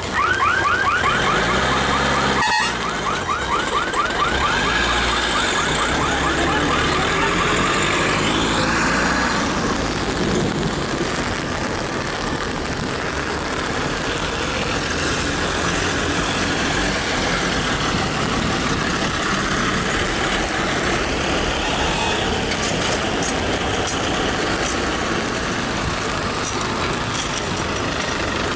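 Road traffic crossing a railway level crossing: cars, an SUV and a truck driving over the rails on a wet road, engines running. For the first several seconds a fast, evenly repeating electronic warble sounds over the traffic.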